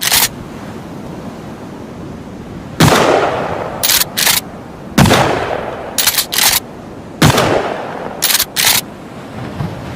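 Remington 870 TAC-14 pump-action firing three shots about two seconds apart, each ringing out for over a second, with the pump racked back and forward, two quick clacks, after each shot.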